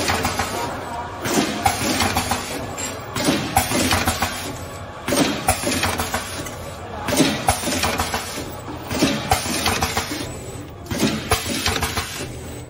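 Ice pop packing machine running, its metal mechanism clinking and clacking irregularly, about one or two knocks a second.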